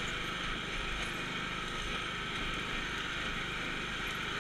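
Riding lawn mower's engine running steadily as the mower is driven over rough, cleared ground.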